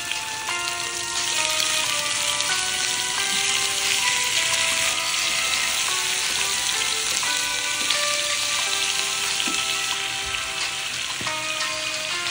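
Raw chicken drumsticks and thighs sizzling in hot oil in a frying pan as they sear. The sizzle swells about a second in as more pieces go into the pan. Background music with held notes plays throughout.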